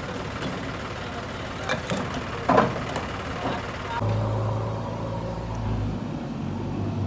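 Fired clay bricks clinking and knocking as workers toss and stack them by hand, with some voices. About four seconds in, the steady hum of a diesel engine from a backhoe loader or tractor takes over.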